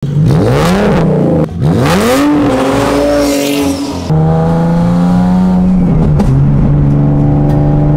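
Turbocharged Nissan 370Z's V6 exhaust under hard acceleration: the engine revs up and down, breaks briefly, climbs again, then runs at a steady pitch. The car has a bad exhaust leak and its old downpipes, before the new ones are fitted.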